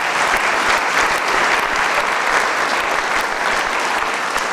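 A room full of people clapping in steady applause.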